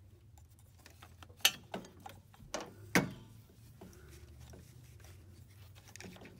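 A few sharp clacks and knocks, the loudest about a second and a half in and again at three seconds, as a Jeep Wrangler's serpentine belt is worked off its pulleys with a breaker bar holding the tensioner back. A faint low hum runs underneath.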